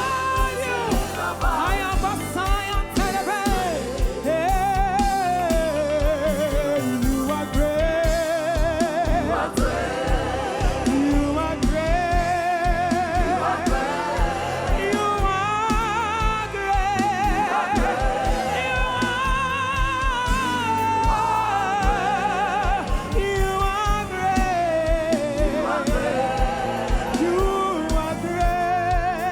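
Gospel worship song: a voice singing long, wavering melodic lines with heavy vibrato over band accompaniment with a steady beat.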